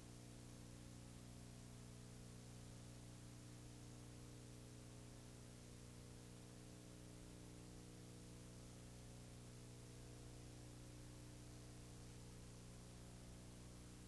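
Steady low electrical hum with a faint hiss and nothing else: the empty soundtrack of a silent film transfer.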